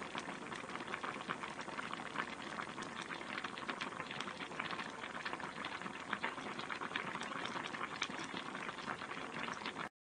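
Food cooking with a steady crackle of many small pops and bubbles, cutting off suddenly near the end.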